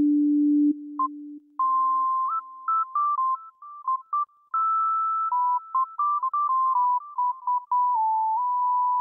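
Synthesizer music: one pure, whistle-like tone holds a low note, then, a second or two in, moves up into a higher melody of short notes stepping up and down.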